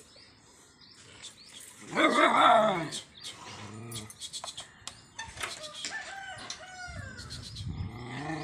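A rooster crows once, about two seconds in, the loudest sound; fainter calls follow.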